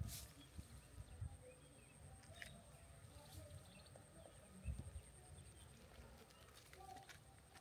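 Near silence: faint outdoor field ambience with irregular low rumbles, a steady faint high-pitched tone and a few faint short calls.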